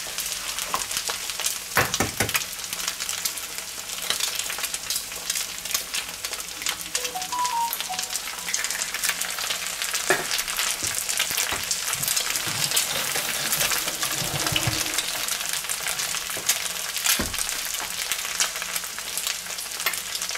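Eggs, diced bread dumpling, bacon and onion frying in butter in a pan, sizzling steadily with fine crackling and a few louder clicks.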